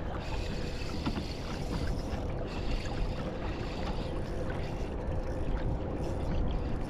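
Wind rumbling on the microphone and small waves lapping against a kayak's hull, with a faint steady hum.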